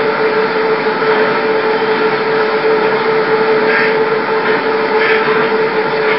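Steady loud hiss with a constant humming tone and no distinct events: background noise of an old home-video recording.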